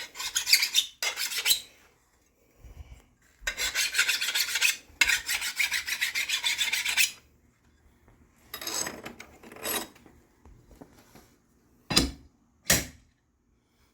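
A file rasping along the edge of a steel lawn mower blade in several long strokes, deburring it after sharpening, then a softer scrape and two short knocks near the end.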